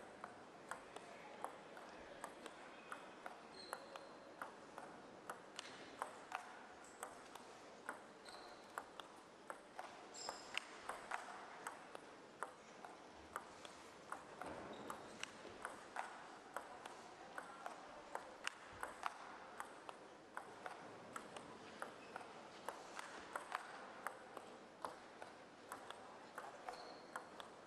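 Celluloid-style plastic table tennis ball being hit back and forth in a long rally: light, sharp clicks from the rackets and the table in an even rhythm, over faint hall ambience.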